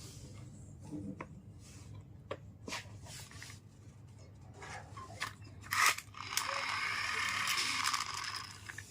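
Toys and packaging being handled: scattered light clicks and taps, then a louder continuous rustling hiss for nearly two seconds near the end.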